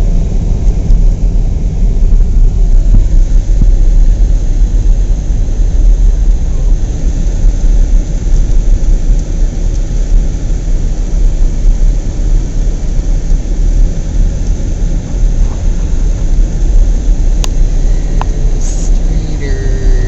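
Car cabin noise while driving on a snow-covered road: a loud, steady low rumble of engine and tyres, with a single sharp click near the end.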